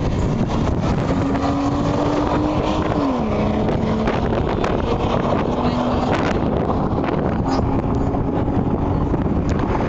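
A car engine running with a steady note that drops in pitch about three seconds in, with another engine note near the end, over a heavy rumble of wind on the microphone.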